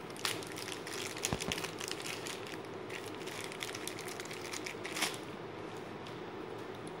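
Small clear plastic bag crinkling and crackling as bundled white earphones are unwrapped and pulled out of it. The dense run of crackles stops about five seconds in.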